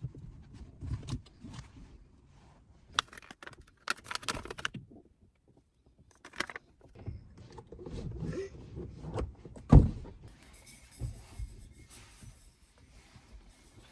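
Handling noises inside a car: clicks, knocks and rustling of things being moved about, with one heavy thump about ten seconds in.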